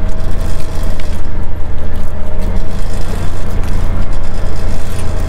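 Polaris Ranger utility vehicle driving slowly across a rough stubble field: steady engine and driveline noise with a strong low rumble and a faint steady whine.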